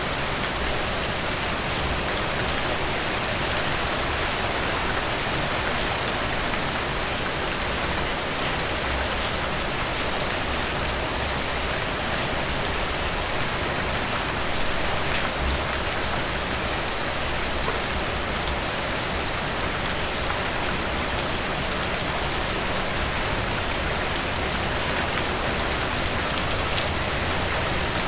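Heavy rain falling steadily on a surface, a dense even hiss with fine drop patter.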